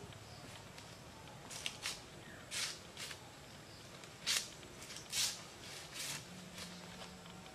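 A knife cutting and splitting fresh banana leaf stalks: a series of about seven short cutting strokes, irregularly spaced, the loudest about four and five seconds in.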